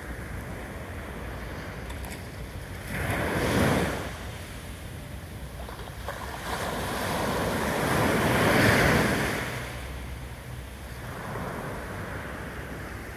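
Small waves breaking and washing up a sandy beach on a calm sea: a short surge about three seconds in and a longer, louder one that builds and fades between about six and ten seconds, then a weaker wash near the end.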